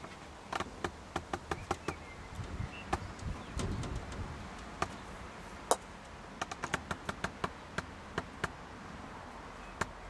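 Irregular sharp clicks and taps, one louder knock about halfway through and a quick run of them soon after, over faint short bird chirps.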